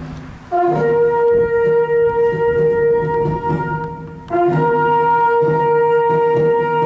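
Brass instruments playing a slow ceremonial call: a short lower note leaps up to a long held note, and the phrase comes twice, over softer lower sustained tones.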